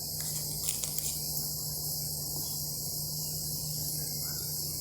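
Chorus of insects, a steady high-pitched drone, over a low steady hum, with a couple of faint clicks about a second in.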